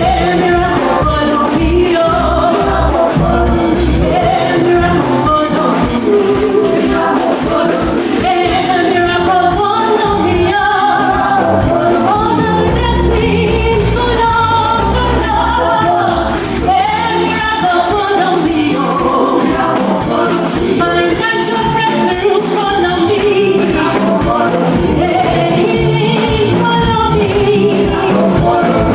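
Gospel worship music: voices singing over a band accompaniment with a steady beat.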